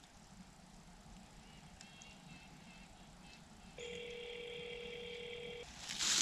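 Telephone ringback tone heard through a smartphone's speaker: a quiet pause, then one steady ring about two seconds long near the middle, while the call waits to be answered. A burst of hiss follows near the end.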